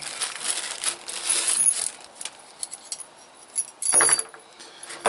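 Small steel chain and pot-hanger hooks clinking and jingling as they are handled out of their packaging, with a rustle of packaging over the first couple of seconds and a sharper clink about four seconds in.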